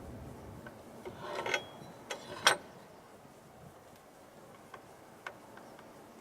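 Assembly parts being handled: a short scraping rattle about a second in, then sharp clicks, the loudest about two and a half seconds in, followed by a few faint ticks.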